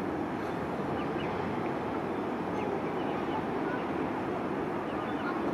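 Steady rumble of distant airport noise, with a few faint, short high chirps over it.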